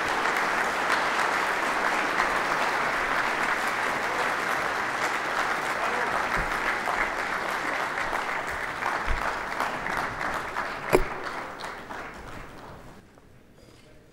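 Audience applauding: dense, even clapping that dies away about twelve to thirteen seconds in, with one louder knock shortly before it fades.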